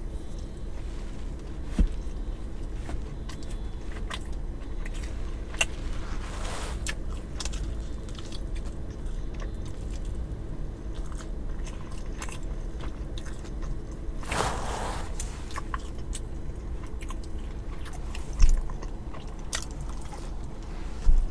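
A person biting and chewing food close to the microphone, with scattered wet mouth clicks and two longer noisy stretches about a third and two thirds of the way through.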